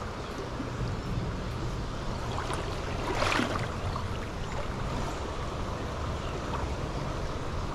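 Steady rush of a flowing tailwater river, with a low rumble underneath and a brief louder splash-like rush about three seconds in.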